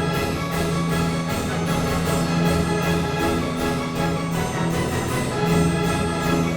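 Background orchestral music with sustained strings and brass over a steady beat.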